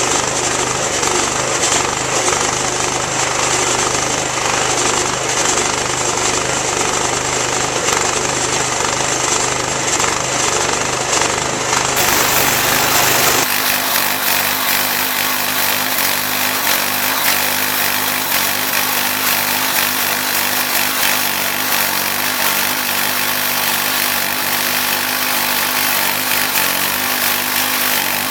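Wood-Mizer LX25 band sawmill running and sawing through a white oak log, a loud steady engine-and-blade drone. About thirteen seconds in, the sound changes abruptly, losing its low hum and turning brighter and higher.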